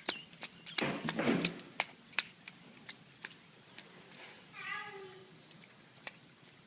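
A small child splashing in a rain puddle: one splash about a second in, amid scattered sharp drips and taps, and a short high voice-like call a few seconds later.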